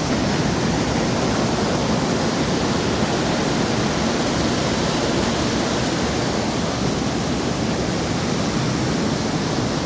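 Waterfall roaring steadily: a constant rush of falling water with no breaks.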